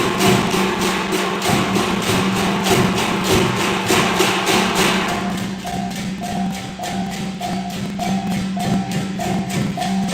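Background music with a steady, even percussive beat of about four clicks a second and a short repeating note in the second half.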